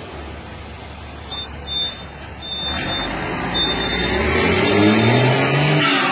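Mercedes-Benz 1721 truck's OM 366 six-cylinder turbo-diesel idling, then revved from about halfway with the engine note rising, and the BorgWarner turbo, fitted with a comb to make it sing, whining up in pitch near the end. A thin high steady tone sounds on and off in the middle.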